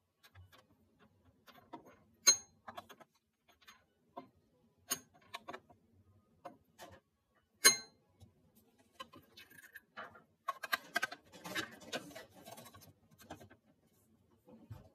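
Metal spoon clinking against a glass tumbler as chia pudding is scooped from a plastic tub into it: three sharp, ringing clinks a few seconds apart, with lighter taps between. About ten seconds in, a few seconds of denser spoon scraping and clatter against plastic containers.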